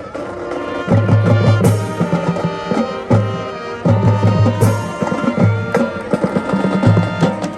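High school marching band playing, with sustained brass and woodwind chords over a drumline. Low bass drum strokes come in quick runs, the first about a second in.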